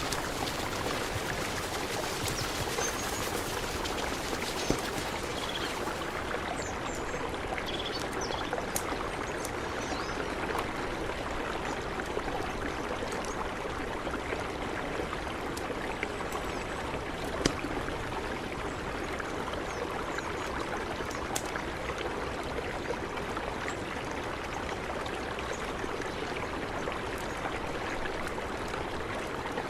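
Mountain river flowing steadily, an even rush of water with a few short sharp clicks.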